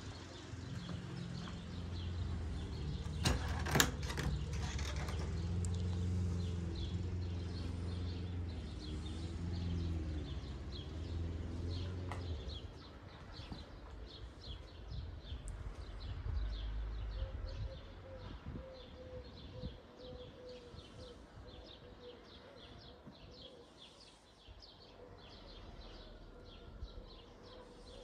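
Small birds chirping over and over. For the first twelve seconds or so a steady low engine hum runs underneath and then stops, with a few sharp knocks about four seconds in.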